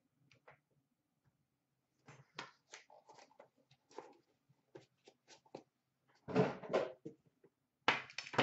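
Hand-handling noises: a run of light clicks and taps as trading cards are set down and handled, then a louder scraping rustle about six seconds in and again near the end as a boxed card product is picked up and handled.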